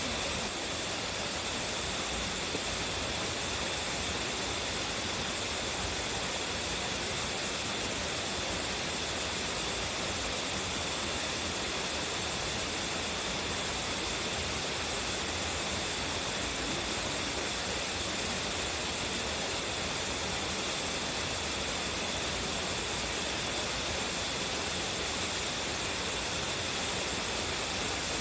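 Waterfall with a strong flow: a steady, unbroken rush of falling water.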